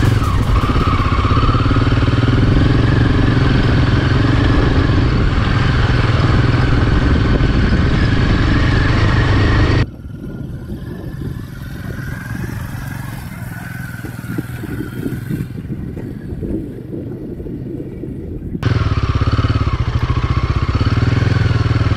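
Motorcycle engine running under load as it is ridden over deep, loose sand, heard close up from on board. About ten seconds in, it drops to a quieter, more distant engine sound, then comes back close and loud near the end.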